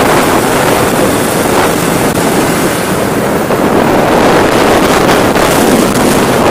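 Loud, steady wind rushing over a helmet-mounted camera's microphone on a moving Bajaj Pulsar RS200 motorcycle, with the bike's engine running underneath.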